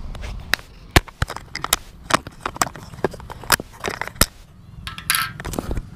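Handling noise on a chest-mounted action camera: irregular clicks and knocks as it is touched and adjusted, with a brief rubbing rustle about five seconds in, over a low rumble.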